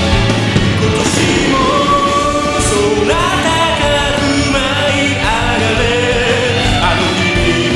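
A song playing: a sung melody over steady instrumental accompaniment.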